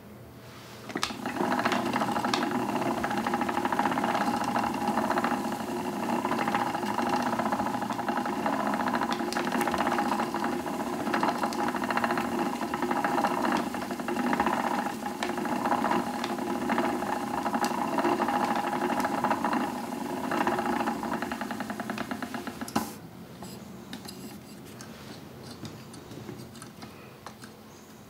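Treadle-driven wooden spinning wheel running as wool is spun: the wheel, flyer and bobbin whir steadily with a fast, even ticking. It starts about a second in and stops with a click a little before the end, leaving faint ticks.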